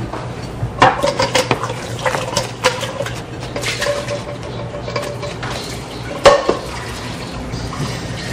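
Kitchen clatter: dishes, pans and utensils knocking against one another, with water running or pouring. One louder clank comes about six seconds in.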